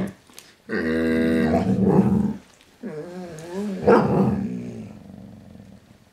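Saluki growling: one long, steady growl, then after a short pause a second, wavering growl that swells about four seconds in and fades away.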